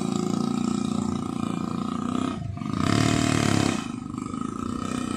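Small ATV engine running with a rapid buzzing pulse. It revs up briefly about three seconds in, then settles back.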